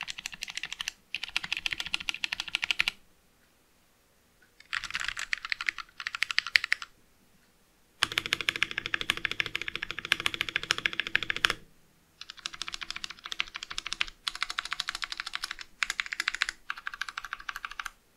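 Fast typing on a Vortexseries VX5 mechanical keyboard with stock Outemu Brown switches in an acrylic sandwich case: dense key clacks in runs of one to three seconds, broken by short pauses.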